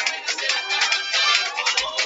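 Dance music playing, with a beat in the bass.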